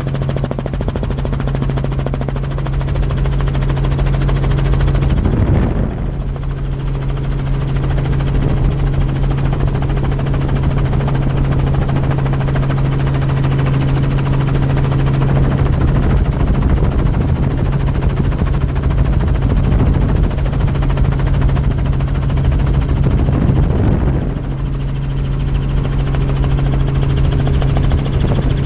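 Helicopter turbine and rotor noise heard from inside the cabin: a loud, steady drone with a strong low hum. Twice the hum briefly breaks for about a second, once near the start and once near the end.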